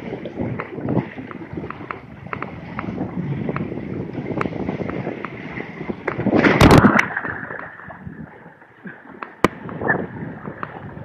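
Water rushing and splashing as a kiteboard skims the water, with spray ticking against the camera housing. A loud burst of splashing comes about six and a half seconds in.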